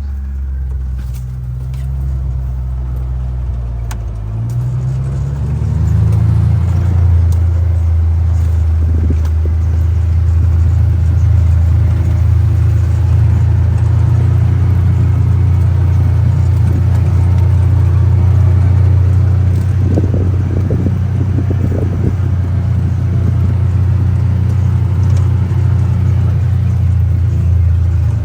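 John Deere Gator utility vehicle's engine running as it drives, its pitch rising about four to six seconds in as it picks up speed, then holding steady. Faint rattles and rustling come through around two-thirds of the way in.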